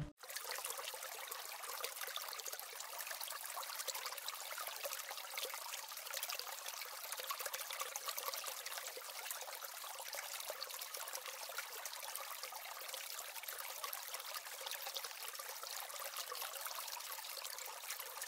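Running water trickling steadily, a fine crackling hiss with no deep sound in it.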